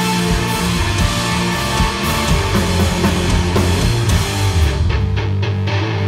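Live heavy rock band (distorted electric guitar, electric bass and drum kit) playing a loud instrumental passage. About five seconds in, after a few hard hits, the cymbals and drums drop out and the guitar plays on.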